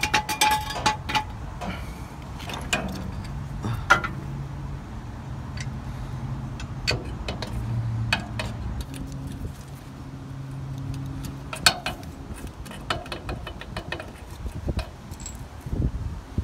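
Scattered metallic clinks and knocks as the lower eye of a new shock absorber is worked by hand onto its mounting stud under a Ford E450 van. A low steady hum runs underneath for several seconds in the middle.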